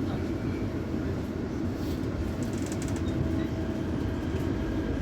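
CAF-built Série 500 Fase II metro train running between stations, heard from inside the car: a steady low rumble of wheels and running gear with a faint steady hum. A brief light rattle comes about halfway through.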